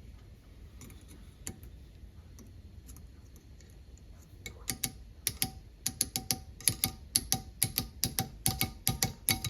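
A bearing race being tapped onto a crankshaft with small pliers: a few faint clicks, then from about halfway a quick run of sharp metal taps, about four a second, each ringing briefly as the race is driven home until it is fully seated.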